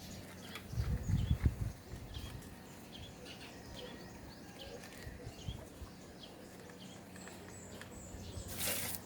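Outdoor ambience with small birds chirping repeatedly, under a low rumble in the first couple of seconds. A short, loud hissing scrape comes near the end.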